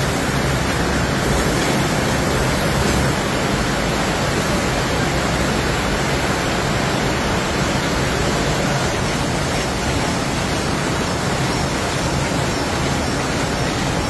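Steady din of running jute mill machinery, an even noise with no clear rhythm.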